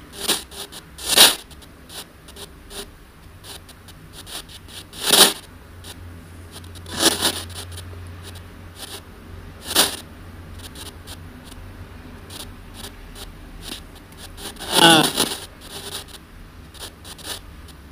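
ANC-Mini spirit box sweeping through radio stations: a low hiss broken by about six short bursts of static and chopped radio sound, the last one near the end carrying a brief snatch of voice. The fragments are what the user takes for spirit voices saying "they're asking about you" and "I like you".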